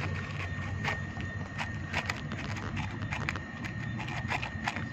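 A dog lapping soft ice cream from a small plastic tub: wet tongue clicks, about two or three a second, uneven in rhythm.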